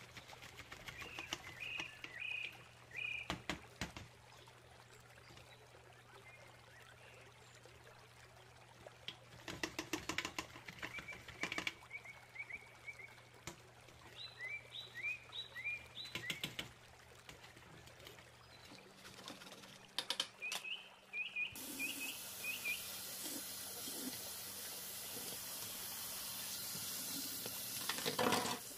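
A brush scrubs a greasy metal mesh range hood filter in a sink of hot soapy water, in scattered scratchy strokes, while a bird chirps in short runs several times. About two-thirds of the way through, a tap comes on and water runs steadily over the filter to rinse it.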